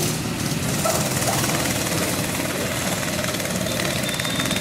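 Go-kart engines running steadily as karts lap the track, a continuous buzz.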